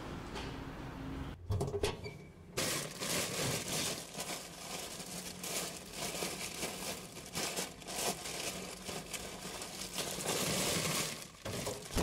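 A few knocks, then a long stretch of close, crackling rustling and crinkling of things being handled and rummaged through.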